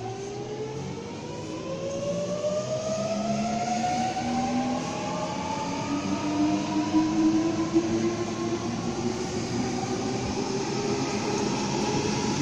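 Sydney Trains Millennium (M-set) electric train accelerating away from the platform: its traction motor whine rises steadily in pitch as it gathers speed, over a growing rumble of wheels on rail.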